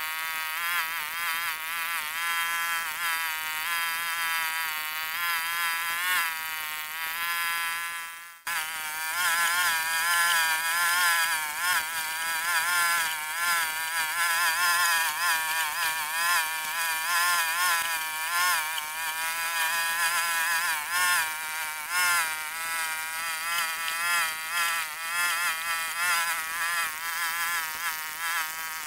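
Small tracked mini excavator running as it works, a high engine note whose pitch wavers up and down with the changing load. The sound breaks off for a moment about eight seconds in, then carries on the same.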